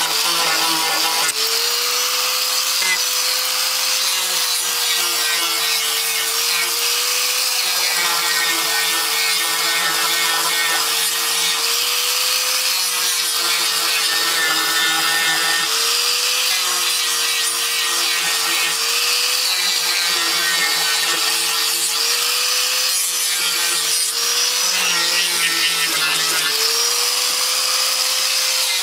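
Electric angle grinder with a sanding disc running continuously against HDPE geomembrane, abrading the liner and patch surfaces to prepare them for extrusion welding. A steady motor whine that dips slightly in pitch every few seconds, over a harsh scraping of the disc on the plastic.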